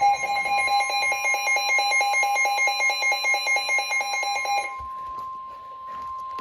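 A weather radio's rapid electronic alert beeping over the steady 1050 Hz NOAA Weather Radio warning alarm tone, which signals that a warning, here a flood warning, is about to be read. The beeping stops about three-quarters of the way through, and the steady tone carries on alone until it cuts off near the end.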